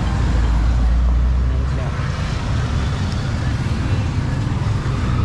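Steady low motor-vehicle rumble, with most of its weight in the deep bass.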